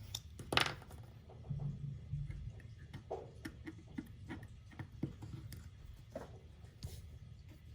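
Scattered light taps, clicks and rustles from washi tape and paper being handled on a planner page, with one sharper click about half a second in.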